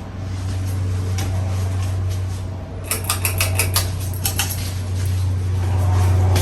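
Harbor Breeze Edenton ceiling fan running with a steady low motor hum, and a quick run of light clicks or clinks about three seconds in.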